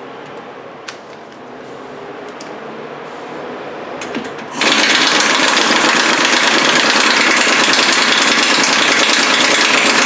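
Air impact wrench hammering steadily on a skid-plate bolt, starting suddenly about halfway through after a few quiet clicks.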